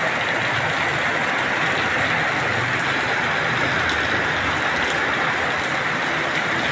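Heavy rain falling steadily, an even hiss of rain with water streaming off a roof edge.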